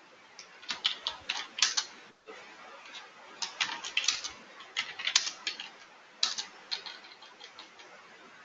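Typing on a computer keyboard: three short runs of quick keystrokes with pauses between them.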